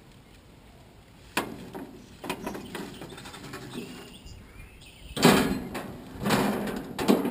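Aluminium foil pan scraping and crinkling as it is shifted by hand on a grill's metal grate. A knock comes about a second and a half in, and louder bursts of scraping come near the end.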